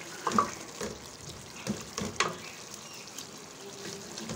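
Chicken masala bubbling and sputtering in a metal pot as it is stirred with a wooden spoon, with scattered sharp pops and knocks; its cooking liquid is nearly boiled away.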